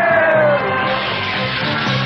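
Cartoon action score with a repeating low bass pulse. A long held tone, falling slightly in pitch, dies away about half a second in.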